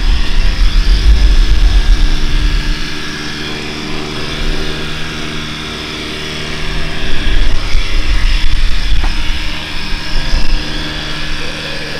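Small electric horse clippers running with a steady motor buzz while clipping the fluff off a miniature horse's legs and shoulder. The sound swells louder twice, for a few seconds each time.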